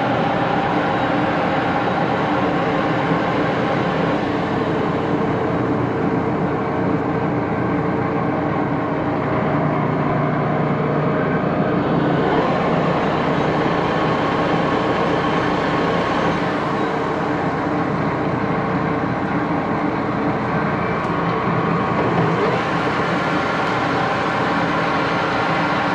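Large engine lathe running, its geared headstock spinning a big steel faceplate: a steady mechanical hum with several steady tones.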